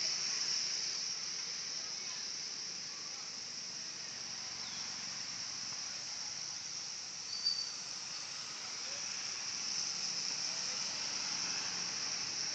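Recorded swiftlet lure call: dense, steady high-pitched twittering of swiftlets, with one brief clearer note about seven seconds in.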